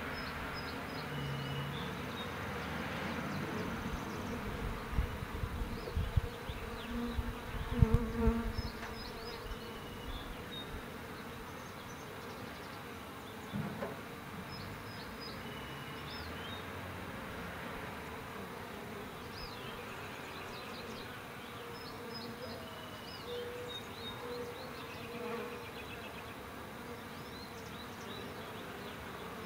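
Honeybees buzzing in a steady hum around the entrance of a Langstroth hive, with a few low bumps about five to eight seconds in.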